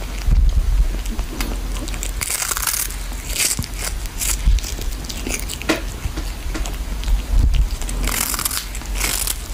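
A cat chewing and biting into a piece of fish held in its paws, with irregular wet crunches.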